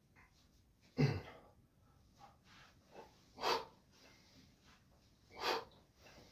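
Hard, noisy exhalations, one about every two seconds, from a man straining through weighted pull-ups with 20 kg on his back. A louder, sudden burst comes about a second in.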